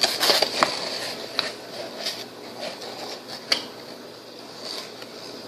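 Quarter-cup measuring cup scooping flour: a short rustling scrape at the start, then a few light knocks and taps of the cup.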